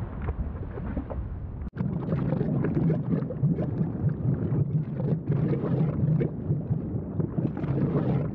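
Basaltic lava fountaining and spattering from a volcanic spatter cone: a continuous deep, churning rumble with gurgling and crackling splashes of molten rock. The sound cuts out for an instant about two seconds in, then comes back denser and louder.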